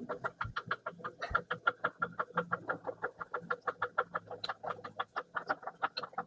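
Milling machine table being traversed along its axis: a fast, even clicking, about eight clicks a second, with a faint low hum under it that stops about five seconds in.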